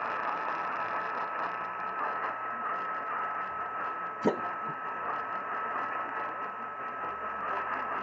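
AM radio reception with no programme audible: a steady hiss with a constant whistling tone through it, and one sharp static crackle about four seconds in.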